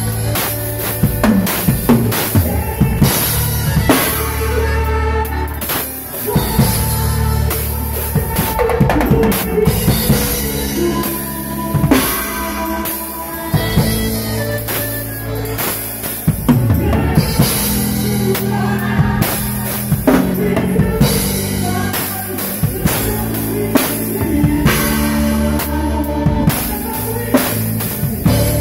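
Drum kit played live in a band: bass drum, snare and cymbal hits driving a steady beat under keyboard.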